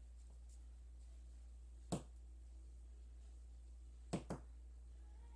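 Sharp finger taps on a sheet of paper taped to a wall: one about two seconds in, then two quick ones near the end, over a faint low hum.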